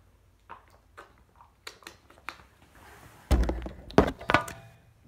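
A few faint clicks from drinking out of a plastic water bottle, then about three seconds in a sudden loud thump and a second of knocks and rustling as the recording device is picked up and handled right against its microphone.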